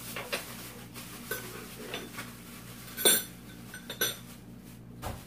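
Metal spoons and chopsticks clinking against each other and against dishes as they are picked out and handled: about six short, separate clinks, the loudest about three seconds in.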